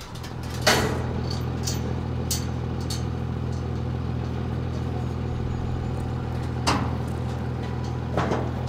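Vehicle engine idling steadily, with three sharp metal clanks from a livestock trailer's barred rear gate as it is unlatched and swung open: about a second in, a little before the end, and again just before the end.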